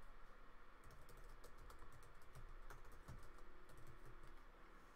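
Faint typing on a computer keyboard: a run of quick, irregular keystrokes as a line of text is entered.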